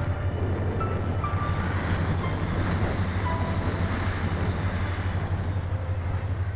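Steady rumble and rush of airflow over a keychain camera riding on a Phoenix 2000 RC glider in flight, swelling a little in the middle. Faint short tones at different pitches come and go over it.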